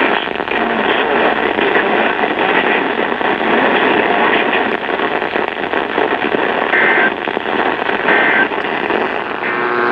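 Loud radio static hiss from a receiver between emergency alert broadcasts, with two brief high beeps about seven and eight seconds in and a steady tone starting to come through near the end.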